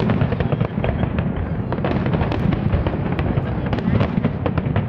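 Aerial fireworks display: a continuous run of shell bursts, with many sharp crackling pops several times a second over a steady low rumble of explosions.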